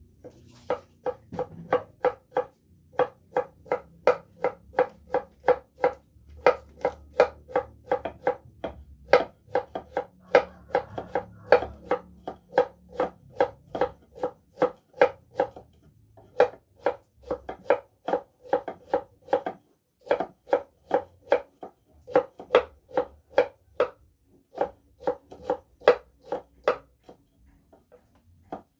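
A kitchen knife chopping steadily on a wooden cutting board, about three strokes a second in runs broken by short pauses every few seconds; each stroke is a sharp knock with a hollow wooden note.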